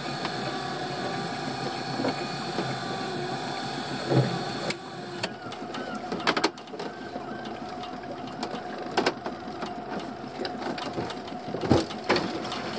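Boat's pot hauler running with a steady whirring hum as it winds in the rope on a lobster pot, with scattered knocks and a clatter near the end as the pot comes over the side.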